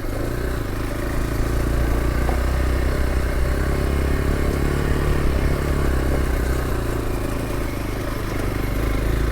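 Hero Xpulse 200 4V's single-cylinder engine running steadily while the motorcycle rides at moderate speed on a dirt mountain road.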